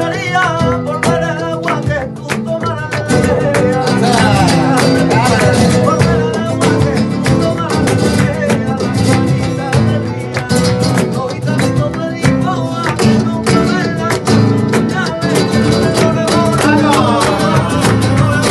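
Flamenco tangos played live: acoustic flamenco guitar strumming and picking, with palmas (hand clapping) keeping a steady rhythm. A voice sings a wavering melodic line from about four seconds in.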